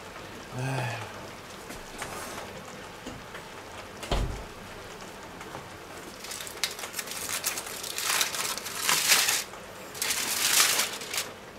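Aluminium foil crinkling in bursts as it is peeled off the edges of a baking tray, starting about six seconds in and loudest in the last few seconds. A single low thump about four seconds in.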